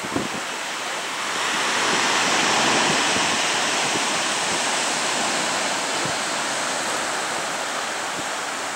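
Ocean surf in a steady rush that swells about a second and a half in and slowly eases, with wind buffeting the microphone in low thumps.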